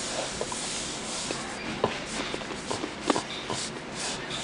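Rustling and shuffling with scattered light clicks, two sharper knocks about two and three seconds in.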